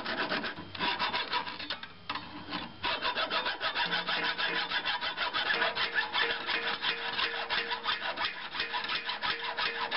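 Hacksaw cutting through a rusted steel brake line in quick, steady back-and-forth strokes, with a short pause about two seconds in.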